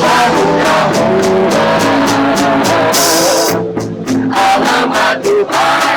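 A band playing live: drum kit with regular cymbal hits and a crash about three seconds in, guitars and a singing voice.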